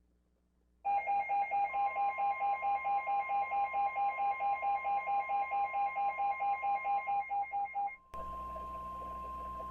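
Emergency alert tones: an electronic beep pulsing rapidly, about six times a second, starts about a second in and stops near the end, while a steady single-pitch alarm tone, typical of the NOAA Weather Radio 1050 Hz warning tone, joins shortly after it and carries on over a radio hiss.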